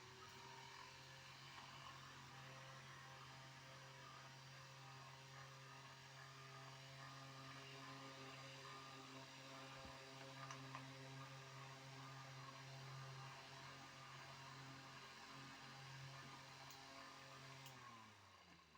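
Small 12-volt car fan with 8-inch blades (AVS-8048) running with a steady motor hum. Its pitch rises briefly as it comes up to speed at the start. Near the end it falls in pitch and fades as the fan is switched off and winds down.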